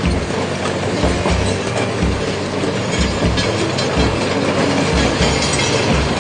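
Crawler bulldozer's diesel engine running steadily, with a rhythmic clanking of its steel tracks about twice a second.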